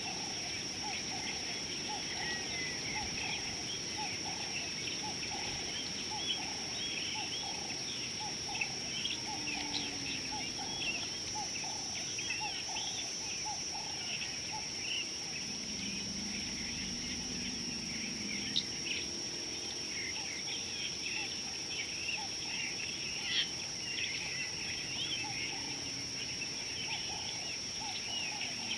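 Wild birds chirping and calling densely, with a quick repeated lower note throughout and a steady high-pitched whine over it.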